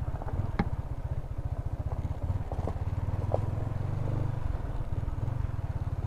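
Yamaha motor scooter engine running at low speed, a steady low pulsing, picking up slightly about four seconds in. A few light clicks sound over it as the scooter rolls along a gravel and dirt track.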